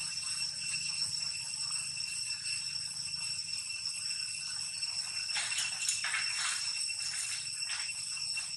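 Steady high-pitched insect chorus holding a constant whine. A few brief sharp sounds stand out a little past halfway and again near the end.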